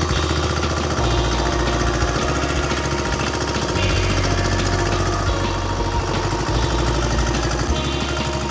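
Boat engine running steadily under way, with a rapid, even beat.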